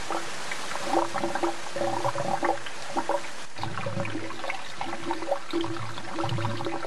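Background music with repeating notes and a low pulse about once a second, over a steady rush of pouring water.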